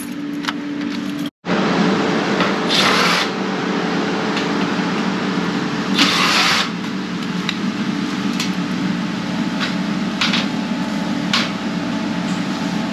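Two short whirring bursts of a cordless drill-driver turning screws, about three and six seconds in, over a steady machine hum, with a few light clicks near the end.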